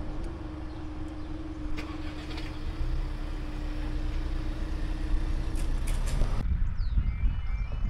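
Level crossing barriers lifting with a steady hum that stops as they reach the top, while cars pull away over the crossing with rising engine and tyre noise. About six seconds in, the sound cuts to a quieter spot with a low rumble and a few bird chirps.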